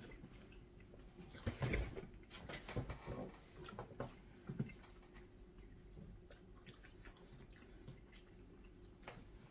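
Quiet eating sounds: a spoon scraping and tapping in a small plastic tub, with soft chewing and small clicks. Most of the clicks come in the first few seconds and then thin out.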